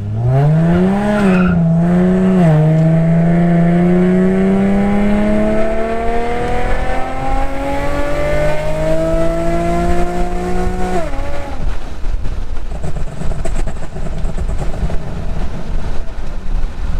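Infiniti G37's V6 accelerating hard on its freshly flashed ECU tune. The engine pitch climbs, dips at an upshift about two seconds in, then rises steadily through the next gear until the throttle is closed suddenly about eleven seconds in. The engine then runs on lower and rougher.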